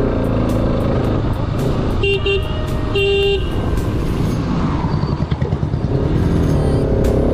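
Bajaj Pulsar RS 200 motorcycle's single-cylinder engine running under way, with wind and traffic noise. A vehicle horn gives two short beeps about two seconds in, then one slightly longer honk a second later.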